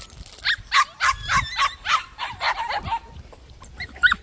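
White puppies barking in quick, high-pitched yaps, about three a second, stopping about three seconds in, with one more yap near the end.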